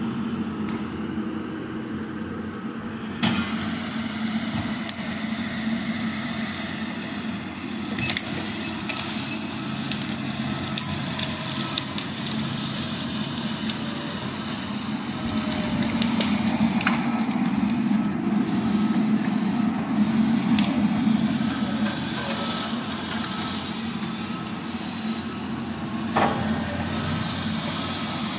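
Heavy diesel logging machines, a grapple skidder and a knuckleboom loader, running steadily, with a few sharp knocks. The drone gets louder for several seconds past the middle.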